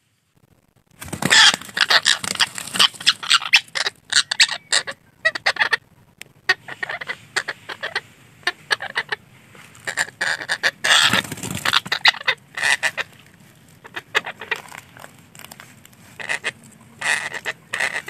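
Parakeets giving loud, harsh squawking calls in rapid runs, starting about a second in and going on with short pauses.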